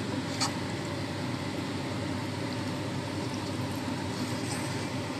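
A steady whooshing hum while a spatula stirs pasta in sauce in a metal pot, with one short sharp click about half a second in.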